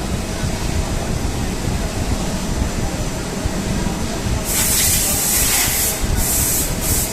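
Steady machine-shop noise from a CNC lathe, then a loud spraying hiss in three bursts, starting about four and a half seconds in, the first the longest.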